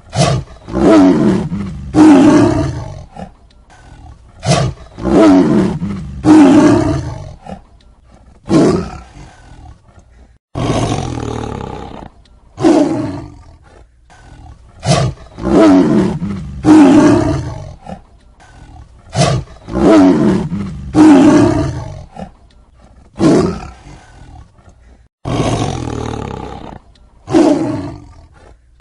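Tiger roaring and snarling in a string of loud calls of about a second each, one every second or two, some of them starting abruptly.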